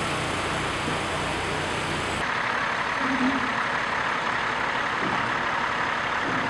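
Heavy truck engine idling steadily. A low hum drops away abruptly about two seconds in, leaving a broader, steady hiss.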